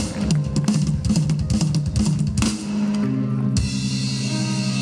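Live rock band playing, with a drum kit beating quickly over bass notes; about two and a half seconds in, the drumming gives way to long held notes.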